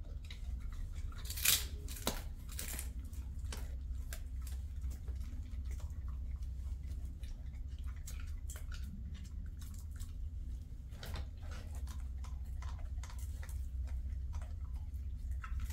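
A dog chewing a treat: irregular wet clicks and crunches, with one louder crackle about a second and a half in, over a steady low hum.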